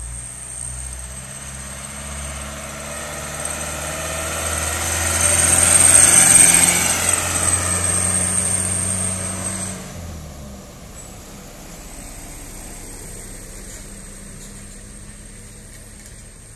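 Diesel engine of a light truck heavily loaded with sugarcane pulling up a steep climb, with a steady engine note that grows louder as it passes close, peaking about six seconds in. The engine sound cuts off suddenly about ten seconds in, leaving fainter background traffic.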